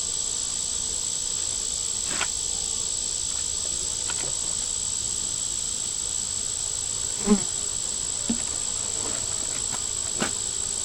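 Steady high-pitched insect drone, with a few light knocks and clicks as wooden hive frames are handled; the loudest knock comes about seven seconds in.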